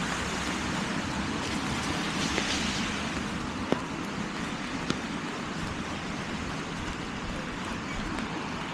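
Steady hiss of rain and traffic on a wet city street, with two sharp clicks about four and five seconds in.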